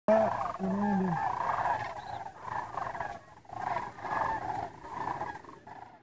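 A flock of large birds calling in flight: many overlapping calls that rise and fall in pitch, loudest at the start.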